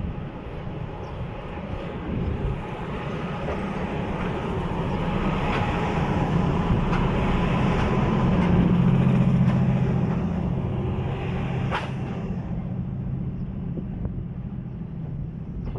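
A ChS7 electric locomotive rolling slowly past at close range with a steady low hum that swells as it goes by about halfway through, then fades as the double-deck passenger coaches roll past, with a sharp click from the wheels about twelve seconds in.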